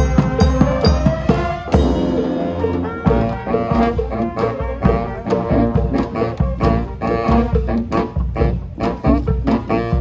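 Brass street band playing: sousaphones and other horns over a steady drum beat.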